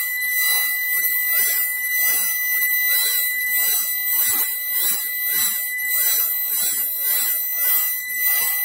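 Eight-spindle 4-axis rotary CNC router roughing, its sound sped up five times along with the picture: a high steady spindle whine, with the cutting noise swelling and fading about twice a second.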